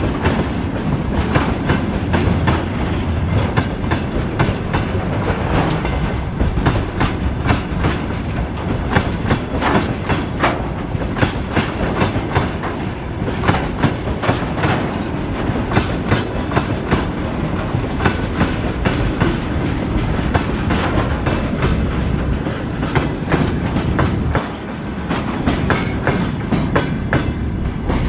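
Freight train of tank cars and open gondola wagons rolling past, a continuous rumble with the wheels clicking over and over across the rail joints.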